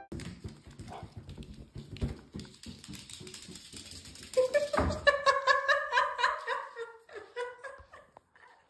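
Meerkat's claws tapping and scrabbling on a wooden floor, then about halfway in a quick series of short high-pitched calls.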